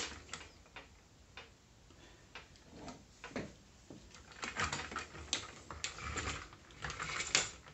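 Hard plastic toy parts clicking and knocking as the sections of a large action figure's staff are pushed together and fitted into its hand. The light clicks are sparse at first and come more often in the second half.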